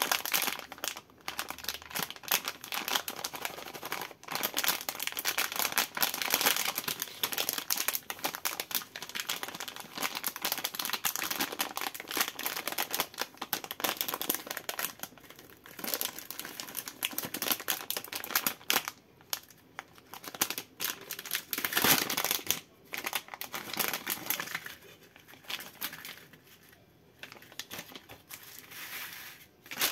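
Plastic candy bag of jelly gummies crinkling and rustling as it is squeezed and torn open, many small crackles in quick succession, quieter near the end.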